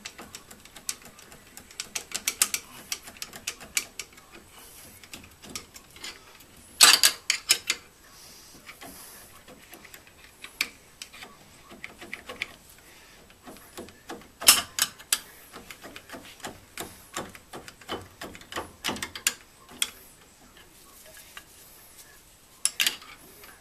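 Irregular bursts of sharp metallic clicks and scrapes as hand tools bite and slip against the spacer on a Datsun 311 Roadster's front wheel spindle. The loudest bunches come about a third of the way in and just past halfway.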